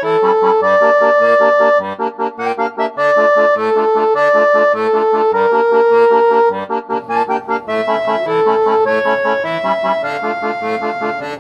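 Instrumental music: a melody in long held notes over a steady, alternating bass-note-and-chord accompaniment.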